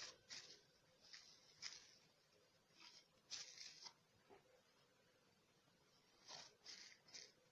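Faint, short rustles and crinkles of plastic cling film being handled as sheets of fresh egg lasagna are layered with it, in a few brief clusters.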